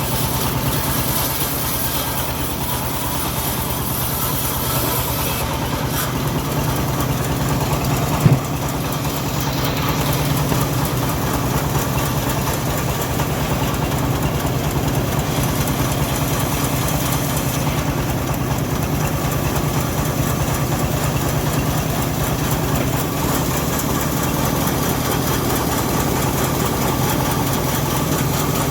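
Engine of a homemade bandsaw mill running steadily at a constant speed, with one sharp knock about eight seconds in.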